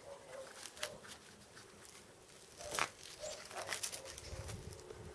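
Quiet handling noise from a Velcro strap being threaded through a small plastic drone frame: soft rustles and scrapes with a few light clicks, the sharpest a little under three seconds in.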